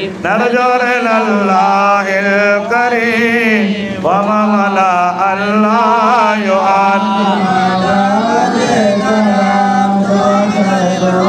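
Male voices chanting an Arabic Mawlid poem in praise of the Prophet Muhammad, amplified through microphones. The singing is melismatic, with long wavering held notes that bend up and down over a steady low drone.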